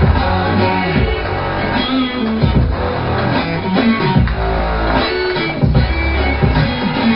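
Background music: an electronic track with guitar and a steady, heavy bass beat.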